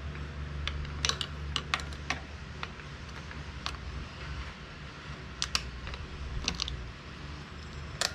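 Small metal bicycle brake parts and tools being handled, giving light, irregular clicks and taps over a steady low hum, with a sharper click near the end.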